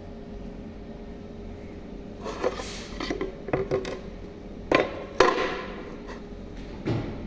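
A run of irregular knocks and clatters of hard objects being struck or handled, starting about two seconds in, with the two loudest hits near the middle, over a steady low hum.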